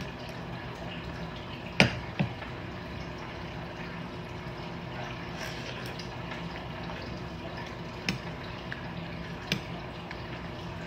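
Eating noodle soup: utensils clink sharply against the bowl a few times, loudest about two seconds in, with softer slurping of noodles and broth in between.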